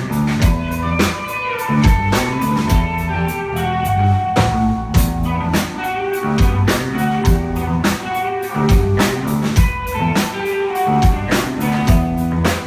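A band playing an instrumental passage: guitar and bass over a drum kit keeping a steady beat, with no singing.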